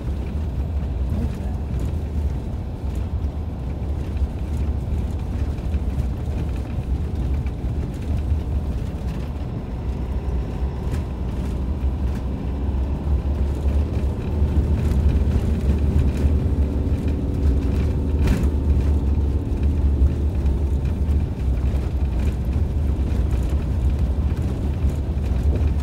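Campervan driving slowly along a gravel farm track, heard from inside the cab: a steady, deep rumble of engine and tyres on the loose surface, growing a little louder about halfway through.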